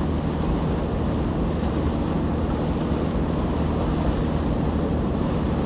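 A boat's engine running steadily under way, with wind on the microphone and the rush of water.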